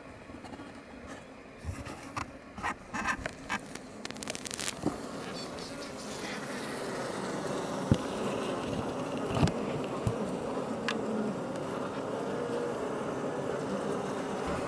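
Iberian honey bees buzzing in a steady, dense hum at their Langstroth hive, growing a little louder after the first several seconds. A few sharp clicks or knocks come in the first five seconds.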